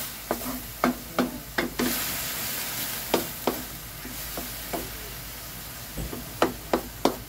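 Wooden spatula stirring banana blossom in a large metal wok: a dozen or so irregular scraping knocks against the pan, each ringing briefly, over a steady sizzle from the pan.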